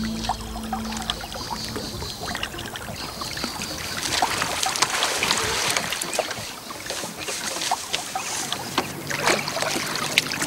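Lake water splashing and trickling as hands work in the shallows, with many short, uneven splashes that are busiest in the middle and again near the end.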